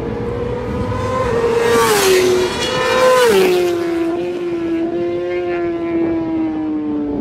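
Racing superbike engines at high revs as a group of bikes goes round the circuit. The engine note drops sharply twice, about two and three seconds in, then falls slowly and steadily.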